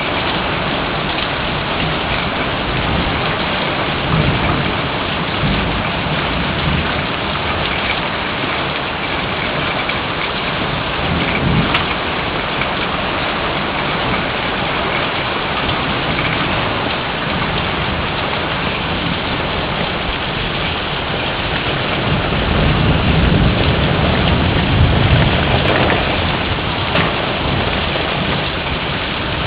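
Heavy rain falling steadily, an even hiss of drops on surfaces. About three-quarters of the way through, a low rumble of thunder swells and fades.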